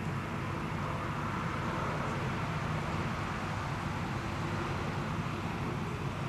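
A steady, even rushing noise with a low rumble underneath, with no bangs or separate events in it.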